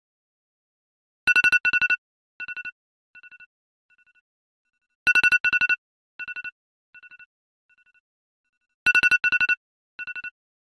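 Smartphone alarm beeping, starting a little over a second in: each round is two loud beeps followed by quieter beeps that fade away, the round starting over about every four seconds, three times.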